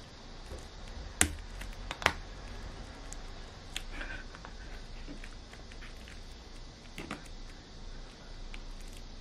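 Two sharp snips about a second apart from small scissors cutting the plastic shrink-wrap on a Blu-ray steelbook case, followed by a few fainter ticks of handling, over a steady background hiss and hum.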